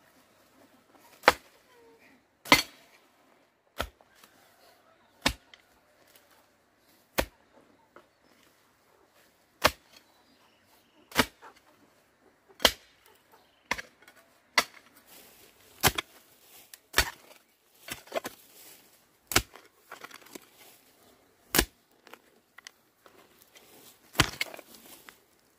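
Repeated sharp chopping strikes of a tool hitting something hard, about one every one to two seconds, coming faster in the second half.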